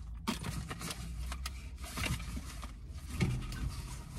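Rummaging through a bag of drugstore purchases: packaging rustling, with irregular small clicks and knocks as items are handled.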